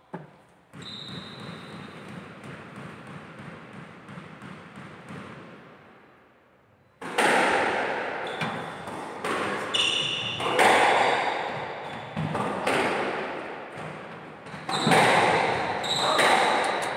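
Squash rally starting about seven seconds in: the ball cracks against rackets and the court walls one to two times a second, each hit echoing in the enclosed court, with short high squeaks from shoes on the wooden floor. Before it, a quieter lull between points.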